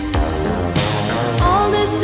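Background pop song with a steady drum beat and bass; a singing voice comes in about one and a half seconds in.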